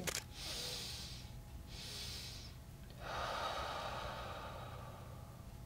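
A woman's physiological sigh: a long inhale through the nose, a shorter second inhale on top of it, then a long exhale through the mouth that fades away. It is a breathing exercise meant to calm the nervous system.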